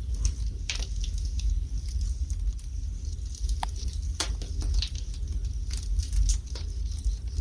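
Wood fire burning in a fireplace: irregular sharp crackles and pops a few times a second over a steady low rumble of the flames.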